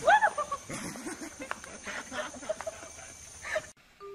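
A monkey giving a couple of loud, short, arching shrieks, followed by scattered quieter calls; the sound cuts off suddenly near the end.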